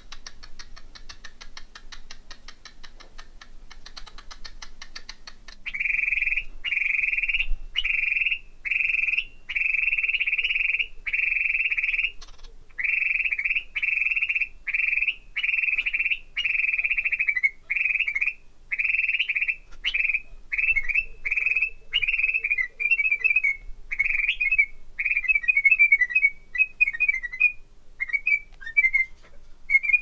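Cockatiel whistling: after about five seconds of soft, very fast ticking, a long run of loud, clear whistled notes on nearly one pitch, each about half a second with short gaps between. In the last several seconds the notes break into quicker, choppier chirps.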